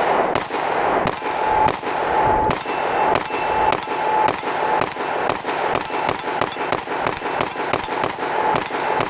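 FN 510 pistol in 10mm Auto with a prototype ANVL compensator firing a long, steady string of shots, about three a second. Steel targets ring between the shots.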